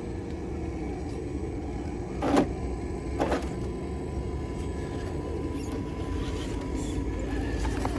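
Axial SCX10 II RC rock crawler's electric motor and drivetrain whining steadily as it crawls over boulders, with two sharp knocks about two and a half and three and a half seconds in.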